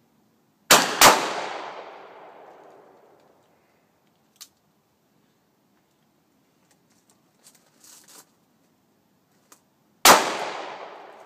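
Three handgun shots: two in quick succession about a second in, and a third near the end, each followed by a long fading echo. Faint small clicks come in between.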